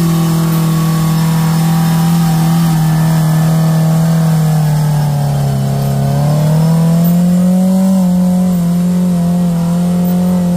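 Car engine running at steady, fairly high revs, the pitch sagging about five seconds in and climbing again a second later as the throttle is worked.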